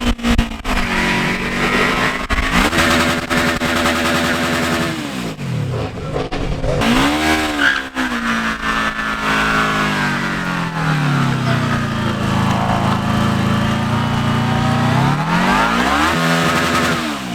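A vehicle engine revved hard again and again: its pitch climbs, holds high and drops back several times, with one long hold at high revs through the second half.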